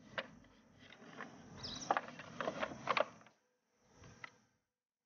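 Hardwood pieces of a Luban folding stool clacking and knocking as the stool is unfolded and set in place: a run of sharp wooden clicks over the first three seconds and one more about four seconds in.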